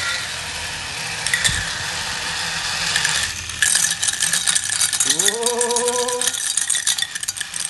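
Battery-operated plastic toy stand mixer (dough maker) running: a steady motor whir, then from about halfway a fast, dense clicking rattle of its plastic gears and beaters in the bowl.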